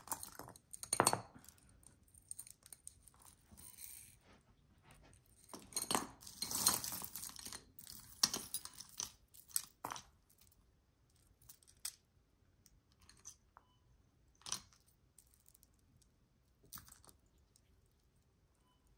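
Costume jewelry being handled and untangled: small clicks, clinks and rustles of chains and beads, busiest a few seconds in, then only occasional taps.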